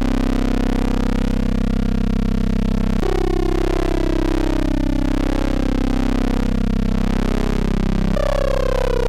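Modular synthesizer drone from Rossum Trident oscillators wave-spliced through a Klavis Mixwitch: a steady, buzzy pitched tone rich in overtones. Its timbre changes abruptly about three seconds in and again near the end, where some overtones start sliding downward as a Trident knob is turned.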